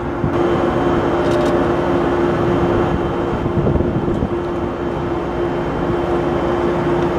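Steady, loud machinery running with a constant hum tone over a low rumble.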